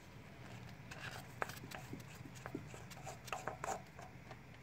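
Faint, scattered clicks and small taps of a gloved hand working among engine parts, bunched between about one and four seconds in.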